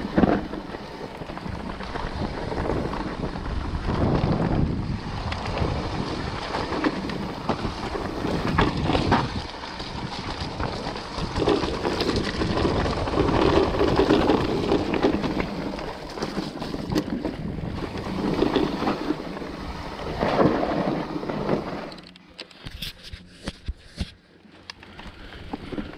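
An electric mountain bike descending a rough dirt trail: wind buffeting the action-camera microphone over the rumble of the tyres, with frequent knocks and rattles from the bike. Near the end it goes quieter for a few seconds, leaving scattered sharp clicks.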